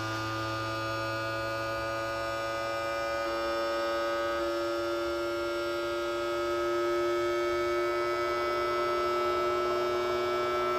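Creality Ender 3 V3 Plus 3D printer's stepper motors humming a set of steady tones during its self-check calibration. The tones shift in pitch about three seconds in and grow louder near seven seconds.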